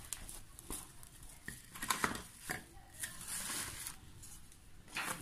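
Plastic cling film being pulled off its roll and smoothed flat on a cutting board by hand, with short irregular crackles.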